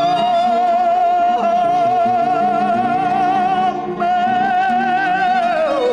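A Romani song: a voice holds one long note with vibrato over instrumental accompaniment, breaking briefly and then sliding down at the end of the phrase.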